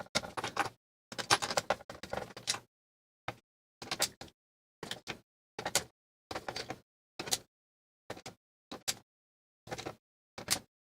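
Screwdriver backing screws out of a Yamaha Reface CP keyboard's plastic case: short runs of small clicks and scrapes, one every half second to a second, with silence between.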